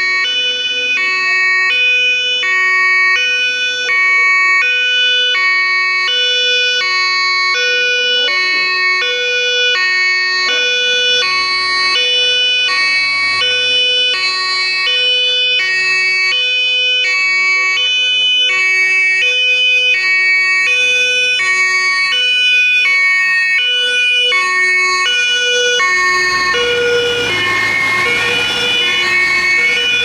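Fire engine's two-tone siren (Martinshorn), high and low tones alternating, each held about half a second. Near the end the vehicle's engine and road noise swell as it draws close.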